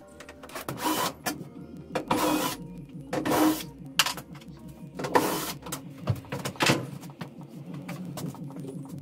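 Cordless drill driver run in about five short whirring bursts, each under a second, on the bulkhead bolts of a Peugeot Boxer van.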